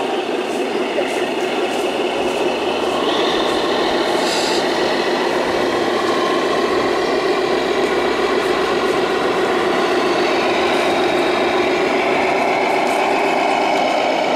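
Radio-controlled model semi-truck driving, its electronic sound unit playing a steady truck-engine sound that picks up a little about three seconds in.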